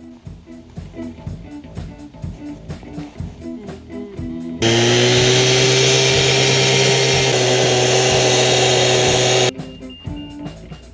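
Background guitar music, cut across by a loud power tool that starts abruptly about halfway through, runs steadily at one pitch for about five seconds, then stops suddenly.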